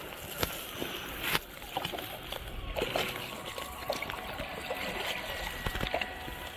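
Water splashing and trickling around a small boat moving on a river, with a couple of sharp knocks in the first second and a half.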